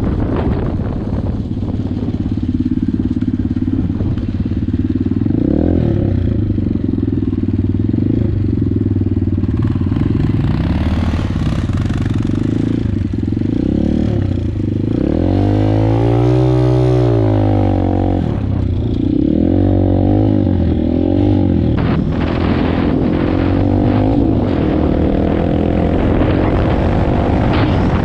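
Dirt bike engine running while riding, its pitch rising and falling with the throttle and gear changes, with one long rev up and back down about halfway through.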